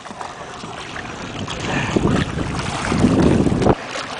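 Water splashing and churning as a hooked nurse shark thrashes at the surface against the boat's hull, with wind buffeting the microphone. The noise builds through the second half and cuts off suddenly near the end.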